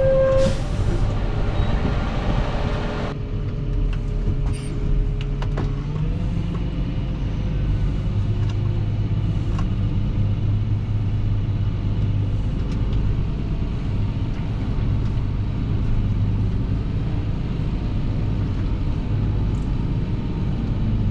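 Fendt 716 Vario tractor engine running steadily while pulling a slurry tanker, with a continuous low hum and a whine that rises a little about six seconds in. A high hiss stops about three seconds in.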